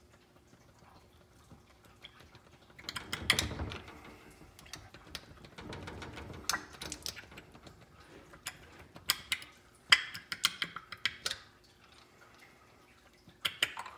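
Small metal transmission parts clicking and clinking as a valve-body component of a 4L60E is wiggled loose by hand. A short burst of clatter comes about three seconds in, followed by scattered sharp clicks, the loudest near the end.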